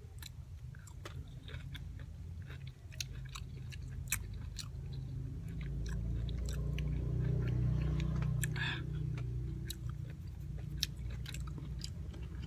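Close, wet chewing of a raw calamondin eaten whole with its peel: irregular mouth clicks and small crunches. A low steady hum sits underneath and swells in the middle.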